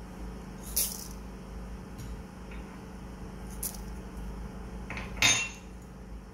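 Whole spices being tipped one batch at a time into a large pan of coriander seeds, with a few sharp clinks against the pan, the loudest about five seconds in. A steady low hum runs underneath.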